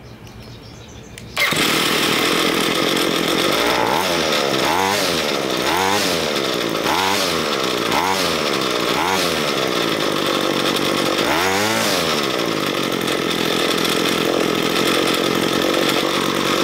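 Ryobi ES30 string trimmer's small two-stroke engine starts a little over a second in and runs. It is revved up and back down about seven times, roughly once a second, then runs steadily. With the main fuel screw just richened half a turn, it runs about right.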